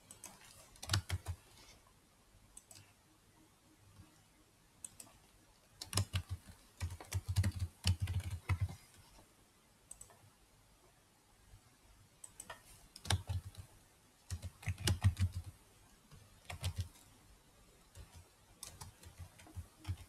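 Typing on a computer keyboard in several short bursts of quick key clicks, with pauses between the bursts.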